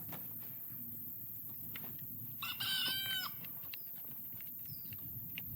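A rooster crowing once: one pitched call under a second long that drops at the end, over faint steady background noise.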